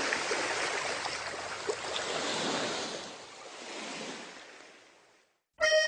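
A steady rushing noise that slowly fades out over about five seconds.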